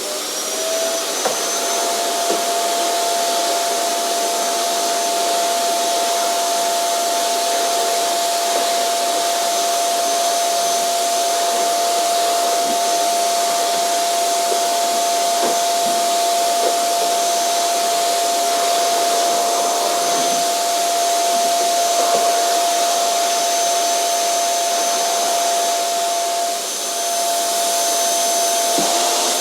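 Vacuum cleaner running at full speed: a steady motor whine with a high-pitched top over rushing air, with a few light knocks as it is used. Its level dips briefly near the end.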